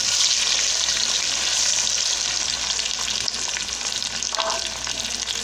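Chopped onions, pimentos and tomatoes sizzling in hot oil in a cooking pot: a steady hiss that eases slightly toward the end.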